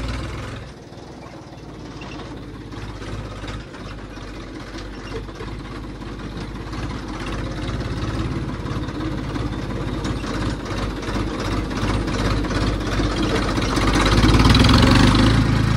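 Tractor engine running steadily with a low rumble, growing louder toward the end.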